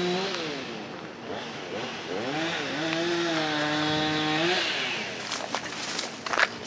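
A chainsaw revving: its pitch drops off at the start, climbs again about two seconds in, holds high for a couple of seconds, then falls back. A few sharp clicks or knocks come near the end.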